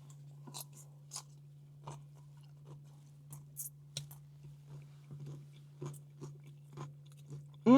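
A person chewing a mouthful of a Korean BBQ pork rice bowl, with soft, irregular crunches of vegetables and kimchi.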